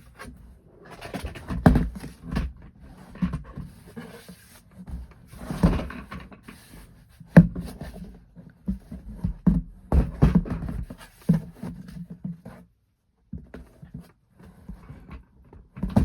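Irregular knocks, clicks and rustling of plastic toys being handled, with a few sharper thuds as they are set down or picked up.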